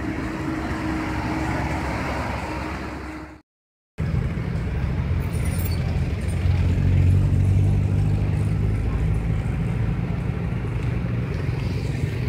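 Road traffic noise heard while moving along a busy street among motorbikes and cars: steady engine and road rumble. The sound cuts out for about half a second a little over three seconds in, then returns with a heavier low rumble.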